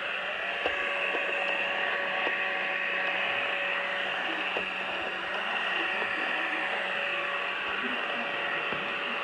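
Pure Clean robot vacuum running over carpet: a steady whirring hiss from its suction fan and brushes over a constant motor hum, with a few faint light clicks.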